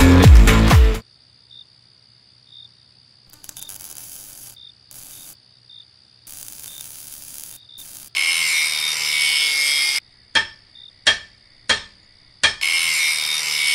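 Workshop tool work: two loud stretches of harsh scraping, each about two seconds long, with three sharp knocks between them and fainter scraping before.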